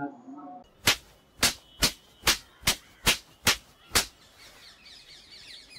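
A run of eight sharp, evenly spaced knocks, about two and a half a second, then faint bird chirping in the background.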